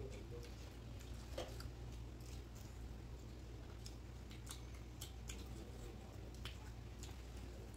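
Eating by hand close to the microphone: chewing and the soft squish of fingers mixing rice and curry on plates, with scattered light clicks, over a steady low hum.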